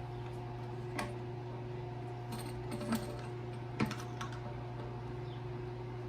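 A handful of sharp clicks and clinks of small hard parts being handled, the loudest a quick double click about two thirds of the way through, over a steady low hum.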